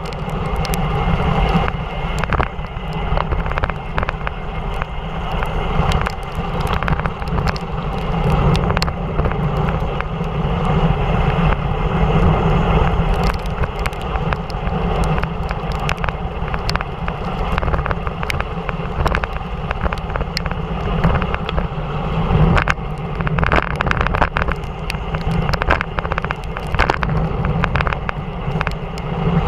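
Bicycle descending at speed on a wet road: steady rushing wind on the GoPro Hero3 and hiss from the tyres and spray, with many brief ticks scattered throughout.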